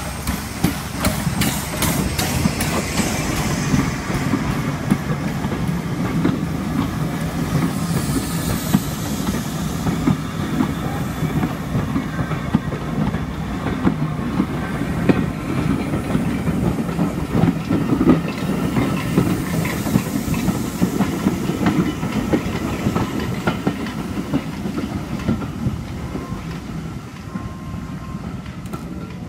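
Saddle-tank steam locomotive No. 198 and its train of vintage carriages running past close by. The train gives a steady low rumble with many quick clicks of the wheels over the rails, and a brief high sound slides down in pitch about eight seconds in.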